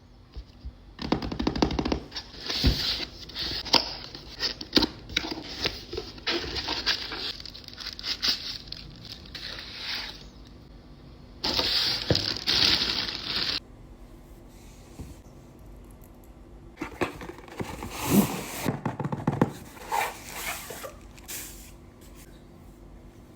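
Irregular scraping, crackling and knocking of objects being handled, with a steady hiss lasting about two seconds in the middle that starts and stops abruptly.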